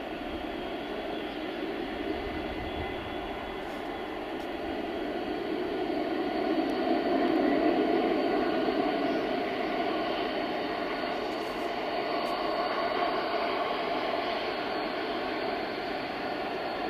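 Boeing 737-200's Pratt & Whitney JT8D jet engines running at taxi power: steady jet engine noise that grows louder as the aircraft passes, loudest about seven or eight seconds in, then easing slightly.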